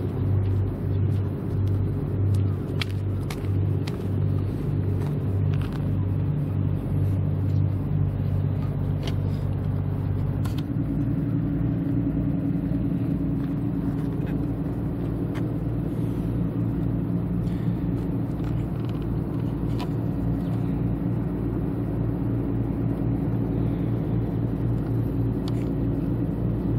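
Steady low engine-like drone with a pulsing beat, whose pitch shifts to a higher hum about ten seconds in. A few faint clicks sit over it.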